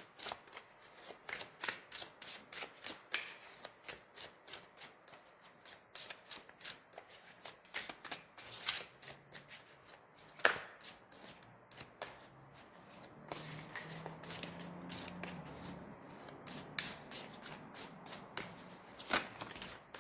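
A deck of tarot cards shuffled by hand: a rapid run of card snaps and flicks, easing into a softer, steadier rustle of cards sliding past each other for a few seconds past the middle.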